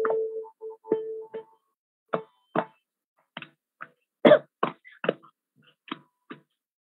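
Hands tapping and slapping the lap in a steady beat, about two strokes a second, keeping the tala of a Carnatic song while the singing pauses. A held note cuts in and out and fades away in the first second and a half.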